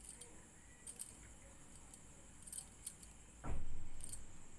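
Light scattered clicks from hands working a crochet hook and yarn, with one louder dull thump about three and a half seconds in that fades out over a second.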